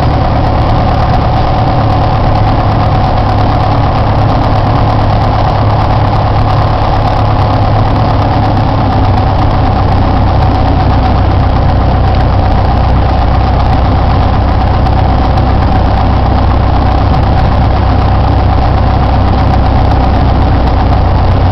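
Piper PA-28-161 Warrior's four-cylinder Lycoming engine and propeller running steadily at low power, heard loud from inside the cockpit, as during the landing rollout.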